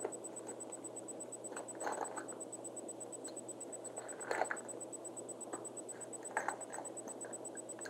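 Faint rustling and scraping of hands working thread and flashy synthetic fibre at a fly-tying vise, in a few short bursts over a steady low hum with a thin high whine.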